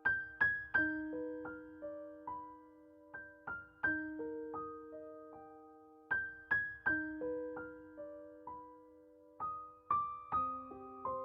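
Gentle background music: a piano or electric piano playing a slow melody of single struck notes that ring on and fade.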